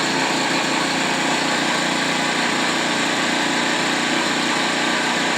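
Predator 4000-watt generator's single-cylinder engine running steadily just after starting, pretty quiet for a generator.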